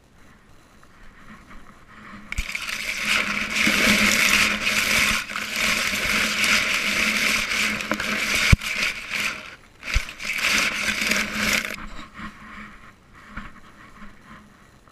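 Scraping and rubbing against a GoPro worn on a dog's harness as the dog moves, lasting about ten seconds, with a few sharp knocks and rattles.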